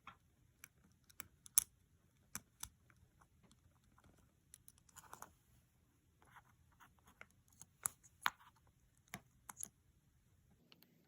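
Irregular light clicks and taps, with a few short scratchy rustles, as small repair tools and phone parts are handled and set down.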